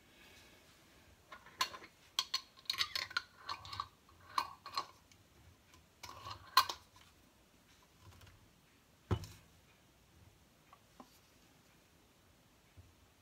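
A glass jam jar with a metal screw lid being handled: a run of small clinks and clicks of lid and glass for about five seconds, then one dull knock about nine seconds in.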